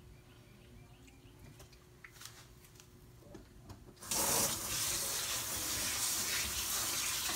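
Soft handling noises, then about four seconds in a loud, steady hiss of running water, like a kitchen tap, starts suddenly.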